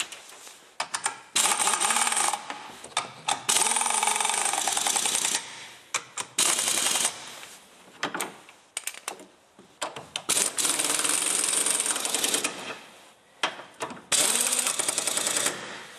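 Impact wrench driving in the top engine-mount bolts, hammering in five runs of one to two seconds each, with short taps in between.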